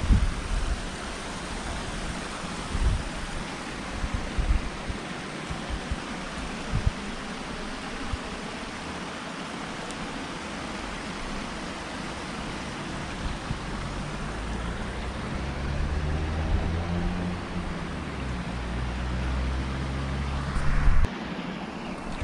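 Steady rush of water from a small river cascade, with low thumps of wind and handling on the microphone. In the second half a low droning hum grows under the water sound and cuts off suddenly about a second before the end.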